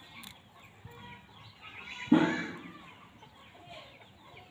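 Background chickens clucking, with one loud cluck about two seconds in, and small birds chirping throughout.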